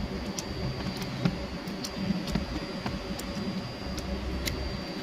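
Light scattered clicks and taps from hands working on an electrical contactor and its terminals, over a steady low hum with a faint high whine.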